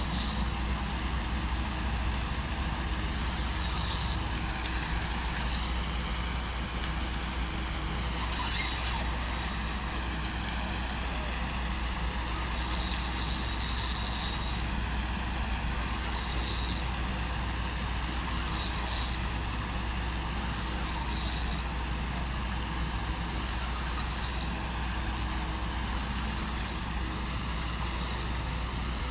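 Steady low rumble throughout, with short high hissing bursts about every two to three seconds from a fishing reel while a large hooked fish is being fought.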